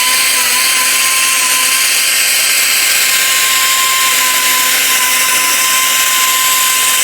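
Harbor Freight air-powered polisher with a 60-grit sanding pad running at full speed, a loud, steady whine over air hiss. It is sanding curb rash out of a wheel's lip.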